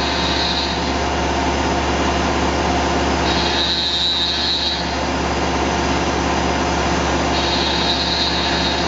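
Tormach PCNC 1100 CNC mill profile-milling 6061 aluminum with a two-flute carbide end mill on a heavier quarter-inch-deep cut: steady spindle and cutting noise over a low hum. A high squeal rises in for about a second and a half three times: at the start, about three seconds in, and about seven seconds in.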